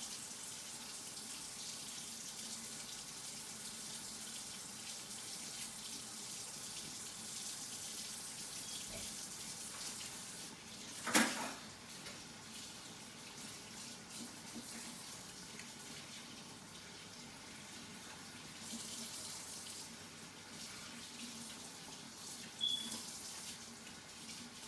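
Kitchen tap running steadily into a sink as raw chicken wings are rinsed under it. There is a sharp knock about halfway through and a smaller one near the end.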